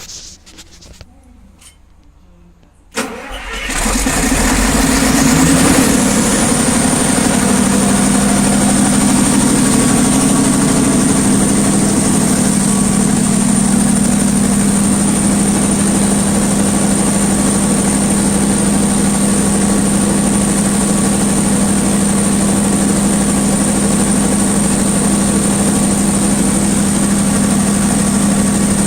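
500 kVA FG Wilson diesel generator starting up about three seconds in, then running steadily. As it comes up to speed, a high whine rises, peaks and settles into a steady tone over a constant low hum.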